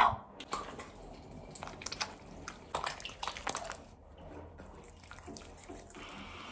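Water splashing at a bathroom sink as a face is washed, in short irregular splashes; a steadier run of water comes in near the end.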